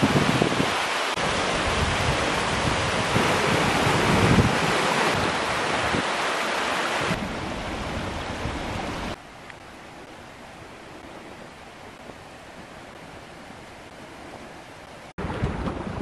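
Rushing water of a snowy mountain stream, a steady hiss, with wind buffeting the microphone in the first few seconds. It drops to a softer hiss about nine seconds in and comes back up near the end.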